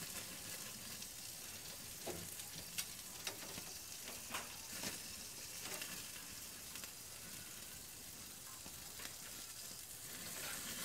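Hamburger patty sizzling in a frying pan: a steady hiss with a few sharp crackles and pops.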